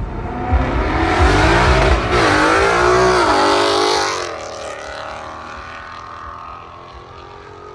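Ford Mustang with an aftermarket exhaust accelerating hard past. The engine note climbs and drops back twice at gear shifts, then the sound fades as the car pulls away.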